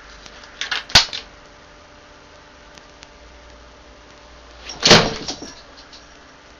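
Two short bursts of knocking and rattling, about four seconds apart, the second the louder.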